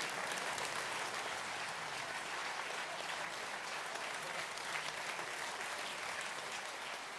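Theatre audience applauding steadily after an orchestral performance, a dense even clapping.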